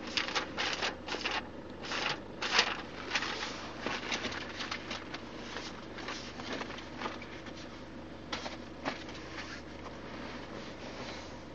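Irregular rustling and scraping noises, thickest in the first three seconds and sparser after, over a faint steady hum.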